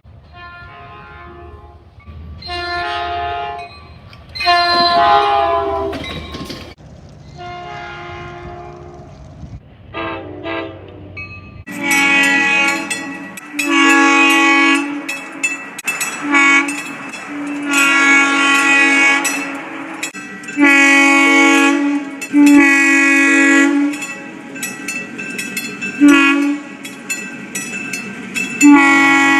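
Train horns sounding a series of blasts, each a chord of several notes. For the first ten seconds the blasts are quieter over a low rumble, and one of them slides down in pitch. About twelve seconds in a louder, fuller horn takes over with a run of long and short blasts.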